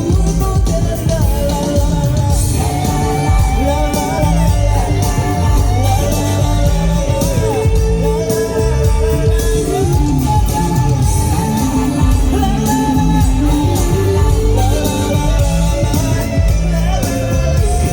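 Live band playing a rock-pop song: a lead melody over a steady bass and drum beat.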